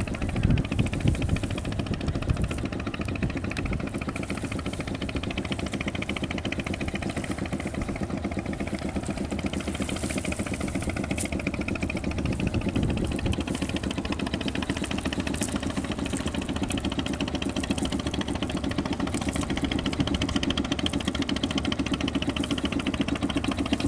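A small engine running steadily at an even, rapid beat.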